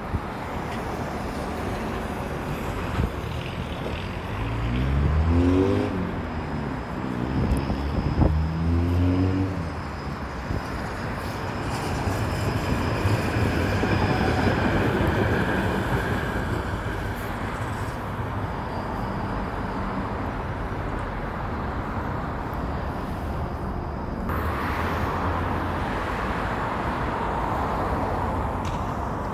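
Outdoor road traffic: motor vehicles pass with a steady rush of noise. Twice, about four and eight seconds in, an engine rises in pitch as a vehicle accelerates.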